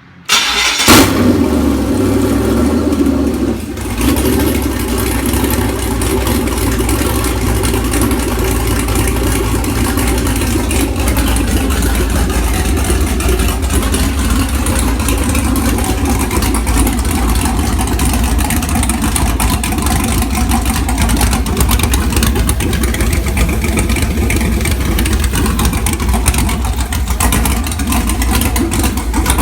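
A 6.0-litre LQ4 V8 with a custom boost cam starts up on an engine stand, exhausting through its manifolds into a turbo hotside merge pipe. It catches right away with a burst of revs about a second in and dips briefly around three to four seconds. It then settles into a steady idle.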